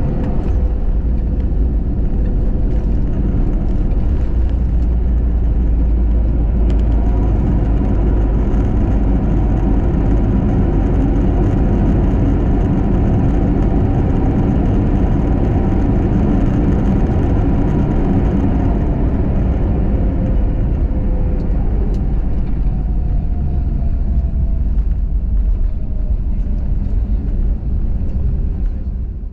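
Jet airliner cabin noise during the landing roll: a loud, steady engine roar and rumble, with a whine slowly falling in pitch as the plane slows. The noise fades near the end.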